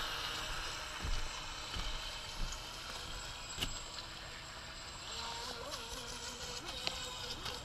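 Atomik Barbwire 17-inch brushless RC speedboat running fast across the water at a distance. Its motor and propeller make a thin whine over a noisy wash, and the whine wavers in pitch in the second half. A few short clicks sound now and then.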